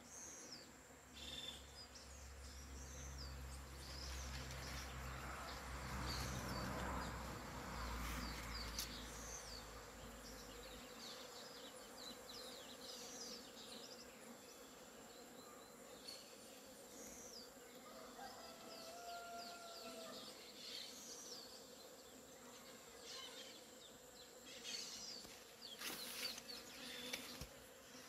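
Bees buzzing faintly as they fly around flowering corn tassels, with scattered high chirps in the background.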